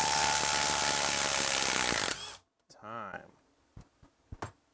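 Milwaukee M12 Fuel brushless impact driver hammering a half-inch lag screw into a log with continuous rapid impacts, which stop abruptly about two seconds in as the screw is driven home. A brief sound and a few faint clicks follow.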